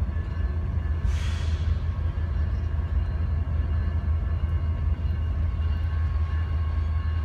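Freight train of autorack cars rolling past, a steady low rumble of wheels on rail, with faint steady high-pitched tones above it and a short hiss about a second in.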